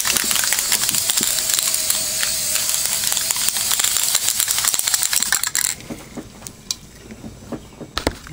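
Aerosol spray can of Ironlak paint spraying in one long hiss, held for about five and a half seconds and then cut off sharply, followed by a few light clicks.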